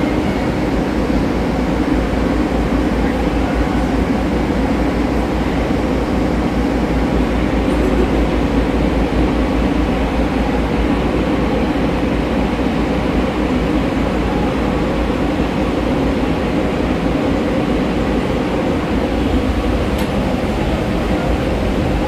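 Steady rumble and hum inside a car of the Aria Express tram, a cable-hauled people mover, heard from within the cabin.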